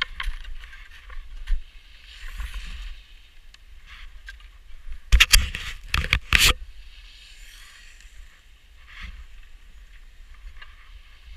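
Skis scraping and hissing over packed snow, with wind rumbling on the helmet-mounted camera. About five seconds in comes a burst of loud knocks and thumps lasting a second and a half, then the scraping goes on more quietly.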